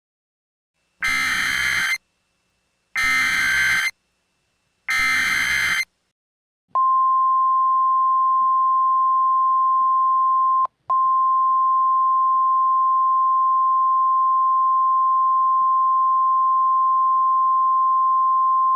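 Simulated EAS/NOAA Weather Radio alert opening: three short buzzy SAME header data bursts, each about a second long and about a second apart. They are followed by the single steady high warning alarm tone of about 1050 Hz, which breaks off for a moment about four seconds after it starts. The sequence is the start of a severe weather warning broadcast.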